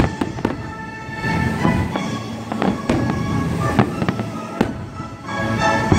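Aerial fireworks shells bursting: a string of sharp bangs, the loudest right at the start, with music playing underneath.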